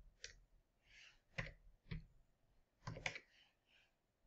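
A handful of faint, scattered clicks of computer keys as figures are keyed into a form.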